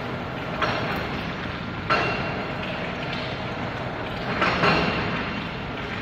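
Steady industrial noise from a steel-shell induction furnace melting steel, broken by sudden noisy surges about half a second in, near two seconds in, and again between four and five seconds in.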